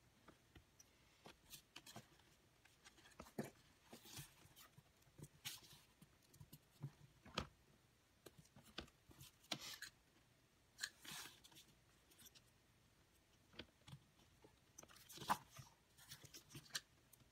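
Faint, irregular rustles and taps of paper and card being handled and fitted together, with a louder rustle about fifteen seconds in.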